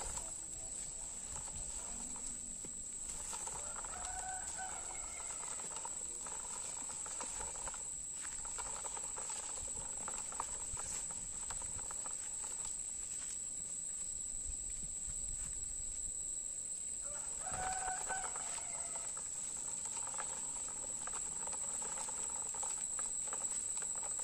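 A rooster crowing twice, a few seconds in and again past the middle, each crow lasting about two seconds, over a steady high-pitched insect buzz.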